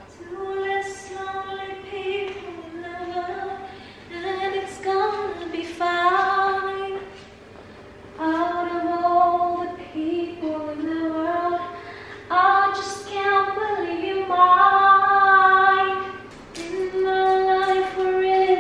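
A woman singing unaccompanied: phrases of held, sustained notes with short breaks between them.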